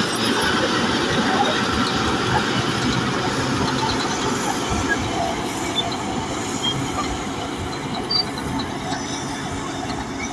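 Bulldozer working, its engine running and its steel tracks clattering and squeaking in a steady, dense mechanical din that eases slightly toward the end.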